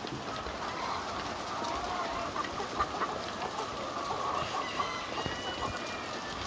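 A large flock of chickens in a poultry shed, many birds clucking and cheeping at once in a steady, dense chorus, with scattered short clicks.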